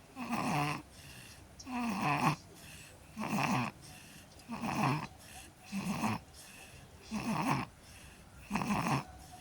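A sleeping baby snoring: a rasping snore on each breath, seven breaths in a steady rhythm of about one every one and a half seconds.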